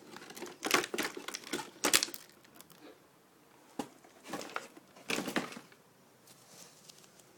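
Rustling and clicking of plastic packaging and small plastic toy pieces being handled while unboxing, in two bursts with a quieter gap between.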